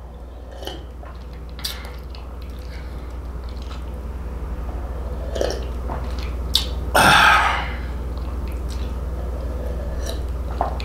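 Sipping and swallowing tea from a plastic cup: faint mouth and swallowing clicks, then a short, loud breathy sound about seven seconds in. A steady low hum runs underneath.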